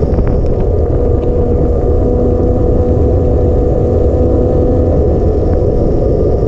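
Wind and road noise from a bicycle ride on a wet road, picked up by a camera on the moving bike. It is a loud, steady rumble with a steady hum over it, and a few faint ticks.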